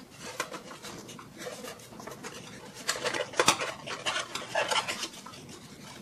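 A small cardboard CPU retail box being handled and its flaps worked open. It gives off a run of light scrapes, taps and rustles, with a cluster of sharper clicks about three seconds in.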